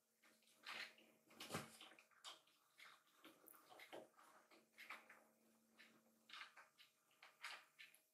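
Faint, irregular wet licking and soft rasping as two kittens groom each other, in short scuffs about once or twice a second.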